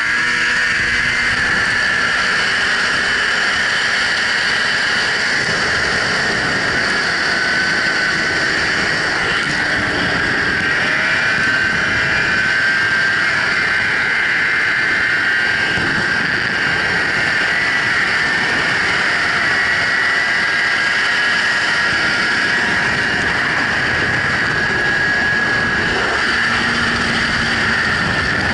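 Snowmobile running steadily at speed: a continuous engine whine whose pitch wavers slightly, with the rush of the ride close to the microphone.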